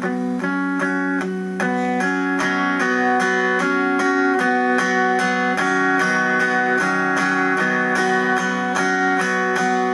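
Acoustic guitar playing the instrumental intro to a country song, picked notes in a steady rhythm of about three to four a second.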